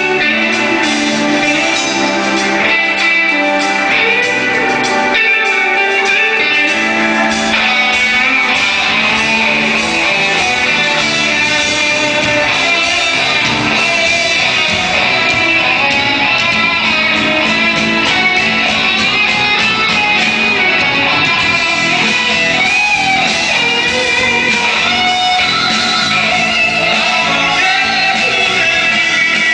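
A Bengali rock band playing live, with guitar to the fore and singing over the band.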